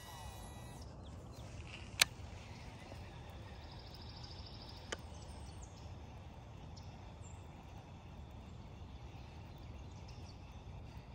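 Quiet creekside outdoor ambience: a low steady rumble with faint high bird chirps. A single sharp click sounds about two seconds in and a smaller one about five seconds in.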